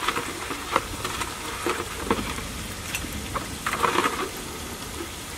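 Chicken pieces frying in oil in an aluminium pot, a steady sizzle broken by scattered sharp pops and crackles, with a cluster of them about four seconds in.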